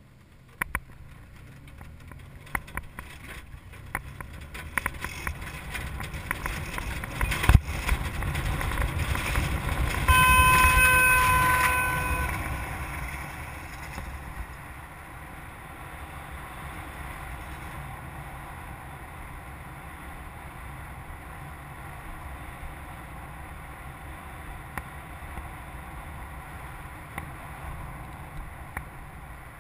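Air rushing past the camera on a hang glider during a truck-towed launch and climb, building to its loudest about ten seconds in, then settling to a steady lower rush. A single knock sounds about seven seconds in, and a steady electronic tone sounds for about two seconds around ten seconds in.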